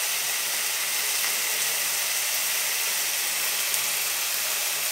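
Sliced onions, tomatoes and green chillies frying in oil in a pan, a steady sizzle.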